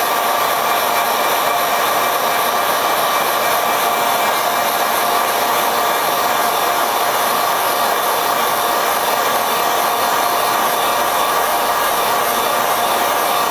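Handheld electric heat gun running steadily: the rush of its fan's airflow with a steady whine on top.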